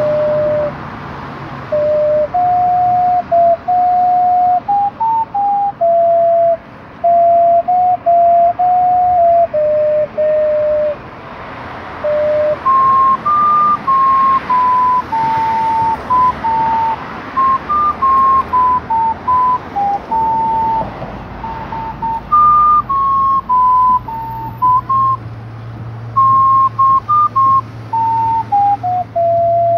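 A slow, wandering melody of clear single flute-like notes played on a small hand-held wind instrument cupped at the mouth. The notes sit lower for the first dozen seconds, then move higher, with brief breaks between phrases.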